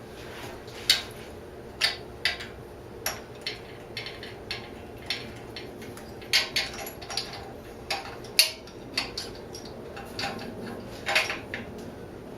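Irregular metal clinks and clicks of a socket wrench and loose fasteners being handled while unbolting a motorcycle exhaust, about twenty sharp knocks over the span with uneven gaps.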